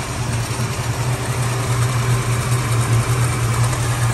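Valiant Charger's big six-cylinder engine idling steadily while running to flush out its cooling system.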